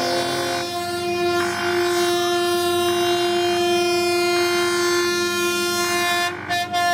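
Train horn sounding in one long, steady blast, its tone pulsing in a regular pattern about every 0.7 seconds. It breaks off briefly near the end and then sounds again.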